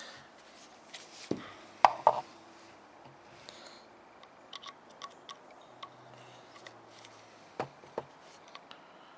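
Small clicks and taps of a hex key working the set screws of a Leupold scope turret, with handling of the turret cap as the screws are snugged up. The loudest clicks come about two seconds in and again near the end.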